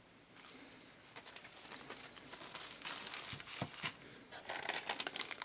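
Packaging being handled and unwrapped: a crinkling crackle that builds from faint to busier and louder over the few seconds.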